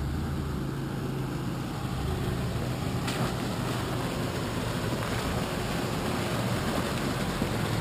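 Dodge Ram Power Wagon pickup's V8 running at low speed as it crawls through mud toward the camera, a steady low drone that grows gradually louder as the truck approaches.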